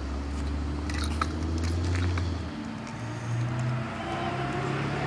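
A motor vehicle's engine running nearby: a steady low hum that shifts to a higher pitch about halfway through. Light clicks and rattles, from a child's bike with training wheels rolling on asphalt, are heard alongside it.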